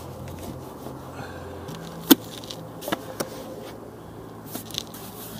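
A mason's trowel clicking and knocking against a mortar bucket as mortar is scooped for laying aerated-concrete blocks: a sharp knock about two seconds in, then a couple of lighter clicks. A faint steady low hum runs underneath.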